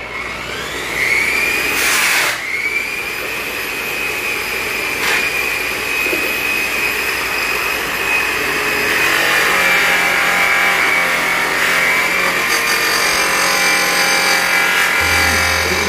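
Power polisher spinning an airway buff: its motor whine climbs in pitch over the first second as it spins up, then holds steady while the buff works compound into an aluminium valve cover, with a brief harsher burst about two seconds in.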